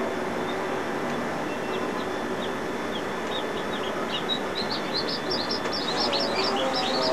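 Newly hatched chicks peeping over a steady rushing background noise: a few scattered peeps at first, then a quick run of peeps from about five seconds in.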